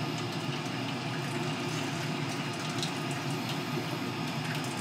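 Hot pasta cooking water being poured off into a sink, a steady pour of water splashing into the basin.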